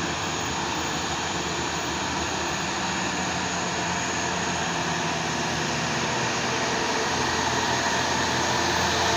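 Medium-size bus's diesel engine running under load on a steep uphill climb, a steady drone that grows slowly louder near the end.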